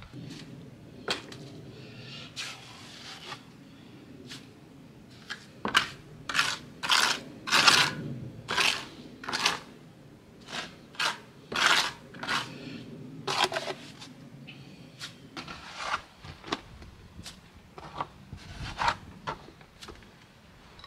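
Hand masonry with a trowel, mortar and stone: a long run of short, rough scrapes, busiest in the middle, as mortar is worked in among stones, with a few sharp knocks of stone and tool.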